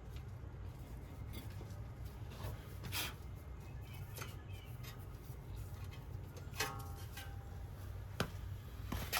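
Scattered light clicks and knocks of tools and parts being handled, one of them with a brief metallic ring, over a steady low hum.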